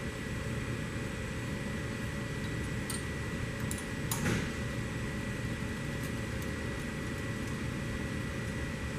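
Steady mechanical hum with a faint high whine, over which a small wrench makes a few light metal clicks on the wiper basket's hub nuts, the loudest a little over four seconds in.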